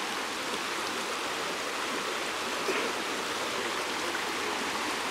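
A shallow stream running steadily over rocks.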